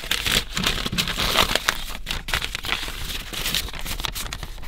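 Sheets of paper and envelopes rustling and crinkling as they are handled and leafed through by hand, an uneven run of crackles and scrapes.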